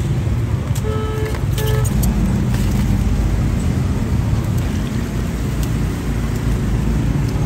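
Steady low rumble of street traffic, with a vehicle horn giving two short toots about a second in.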